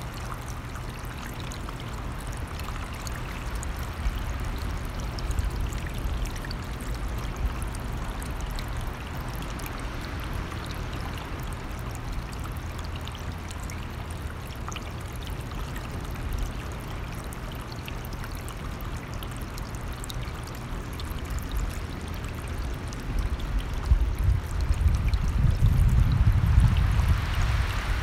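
A mountain stream running steadily, with a low wind rumble underneath that swells in gusts near the end.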